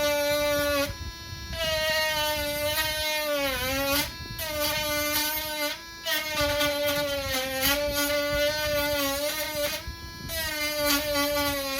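A cheap Dremel-style rotary tool with a sandpaper drum running at high speed, a steady high whine that dips in pitch as it is pressed into the palm rest to sand it down, then recovers. It breaks off briefly a few times.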